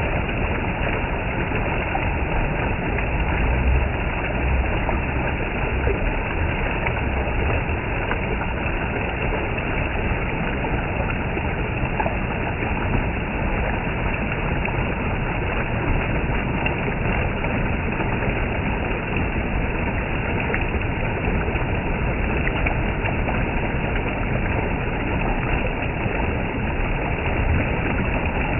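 Water gushing down, a steady unbroken rush with no let-up.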